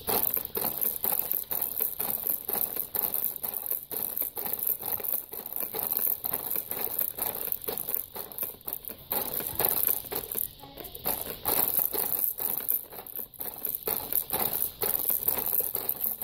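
Plastic toys and frame of a baby's activity jumper rattling and clattering in quick, irregular knocks as the baby bounces and bats at them.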